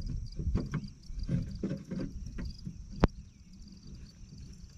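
Umbrella pole knocking and rattling in a home-made aluminum mount on a boat as it is worked into position: a run of irregular clunks, then a single sharp click about three seconds in.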